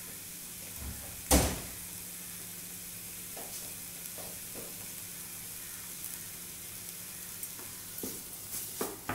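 Chopped vegetables (onion, carrot, capsicum, tomato) sizzling steadily in hot oil in a frying pan. A single sharp knock about a second in, then a few soft taps, with more small knocks near the end.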